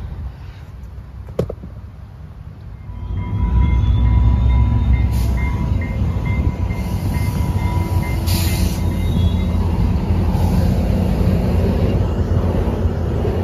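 Trinity Railway Express commuter train of bilevel coaches coming alongside the platform: a heavy low rumble of wheels on rail builds about three seconds in and continues, with a bell ringing at a steady beat and a thin high squeal for several seconds. A single sharp knock comes about a second and a half in.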